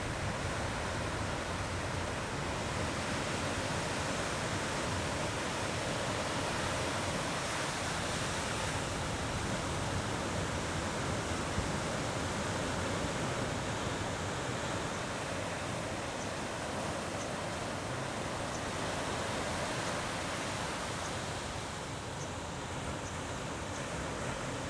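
Ocean surf: a steady, continuous wash of waves breaking, easing slightly near the end.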